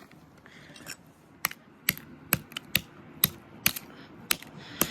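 A blown speaker driver being struck: about eight sharp knocks, roughly two a second, starting about a second and a half in.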